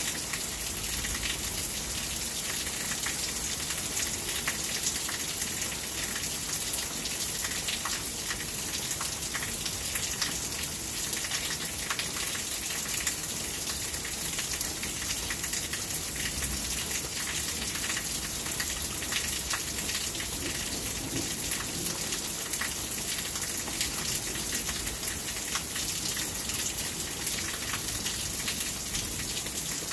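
Steady rain falling, with many individual drops ticking sharply through the even hiss.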